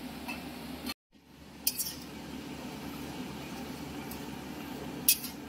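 Cooking sounds: a steady low background with two light metallic clinks of a utensil against a pan, one about two seconds in and one near the end. The sound cuts out briefly about a second in.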